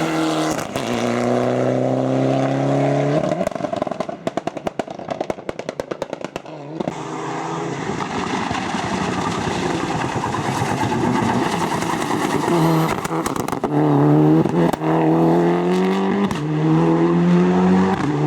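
Mitsubishi Lancer Evo 9's turbocharged four-cylinder engine pulling hard up through the revs, then a few seconds of rapid popping and crackling off the throttle, then revving up again through several gear changes.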